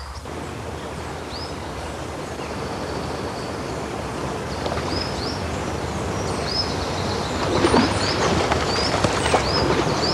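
Outdoor ambience: a bird chirping over and over above a steady rush of noise that slowly grows louder, turning rougher and crackly about seven and a half seconds in.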